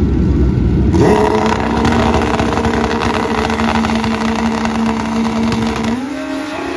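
Two Pro Street drag-racing motorcycles on the starting line. Their engines rev up sharply about a second in and hold a steady high pitch, stepping up a little in pitch near the end, as the bikes stage for a run.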